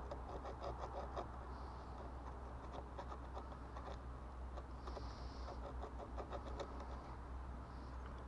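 Light clicks and small rattles of the parts of a truck's turn signal switch being handled and fitted back together, in irregular clusters over a low steady rumble.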